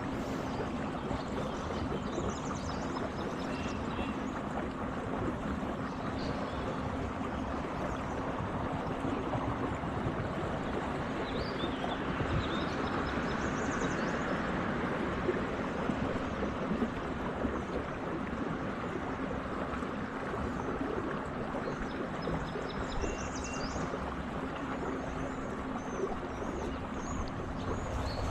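Steady rush of river water around a small boat, with a faint steady hum that stops about ten seconds in.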